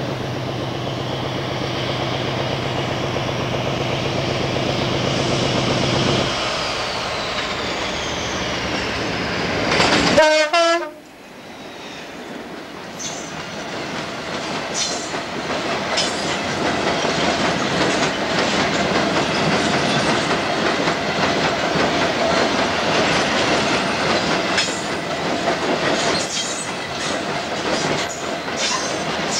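A diesel locomotive's engine runs with a steady hum under a rolling train, and the hum stops about six seconds in. A short garbled burst comes at an edit near ten seconds. Then loaded coal hopper wagons roll past at close range with a steady rumble and scattered clicks of wheels over rail joints.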